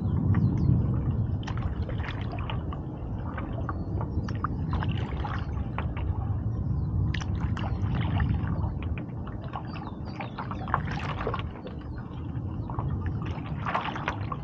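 Stand-up paddleboard paddle strokes: the blade dips and splashes in the water in repeated strokes, with dripping and trickling between them, over a steady low rumble.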